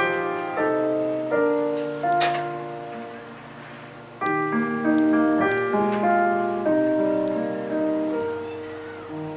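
Slow piano music, chords and single notes ringing out and dying away. The playing thins and fades a little before four seconds in, then picks up again.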